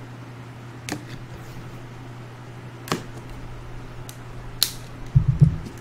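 Figure box and its packaging being handled and opened: a few sharp clicks and a brief rustle, then a cluster of low thumps near the end.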